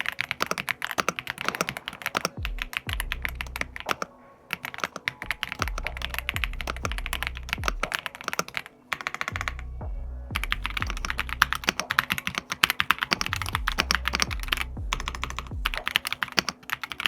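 Fast typing on Ajazz AK870 V2 gasket-mounted mechanical keyboards with linear switches (Daydream and Ajazz Flying Fish), giving dense runs of keystrokes with brief pauses near four and nine and a half seconds in. It is a creamy sound from lubed stabilizers and a foam-dampened case.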